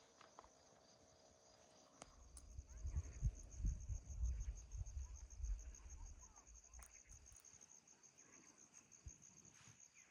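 Crickets trilling steadily in a high, fast-pulsing chirr. Between about two and seven seconds in, an uneven low rumble, louder than the crickets, comes and goes.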